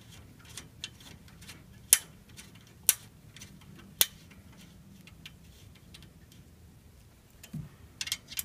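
Light metallic clicks and ticks of an Allen wrench working a clamp bolt into a table's pipe as it is tightened hand tight. Three sharper clicks come about a second apart, about two to four seconds in, and a small cluster of clicks comes near the end.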